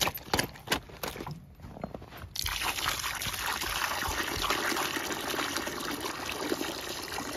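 A few crisp crunches, like boots stepping in snow, then from about two and a half seconds in a steady stream of water pours and splashes into a black water pan that already holds some water.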